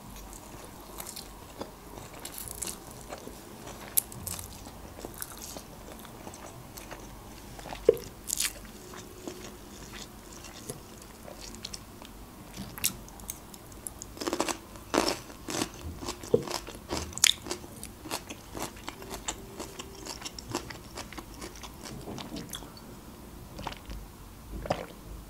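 Close-miked mukbang eating of pasta nests and raw vegetables: chewing and crunching with many sharp mouth clicks, busiest about halfway through.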